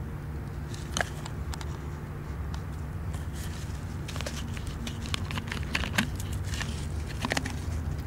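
Scattered crackles, clicks and rustles of close handling and movement over a steady low rumble.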